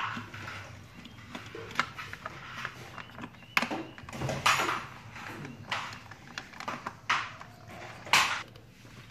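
A white plastic socket housing and its wiring being handled and fitted together: irregular clicks, knocks and short scrapes of plastic, the loudest a sharp click near the end, over a faint steady low hum.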